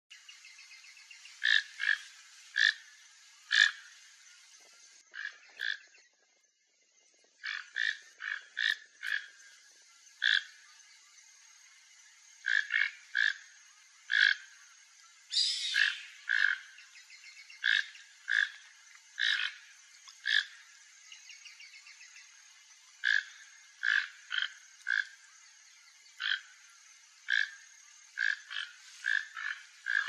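Short, sharp animal calls repeated irregularly, about one a second, with a brief pause about six seconds in and one longer, louder call around the middle.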